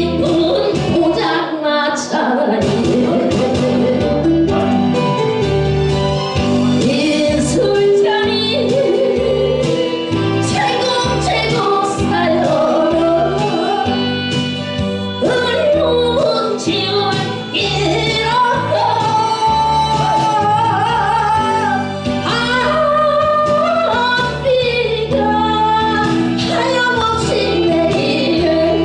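A woman singing a Korean song into a handheld microphone, her voice sliding and ornamenting the melody over accompaniment with a steady beat.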